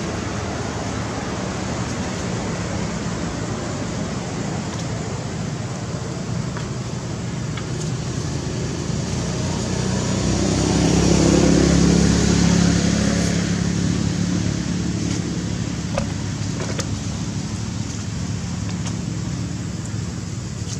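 A motor vehicle's engine passing by: it rises out of a steady background noise to its loudest about eleven seconds in, then fades away over a few seconds.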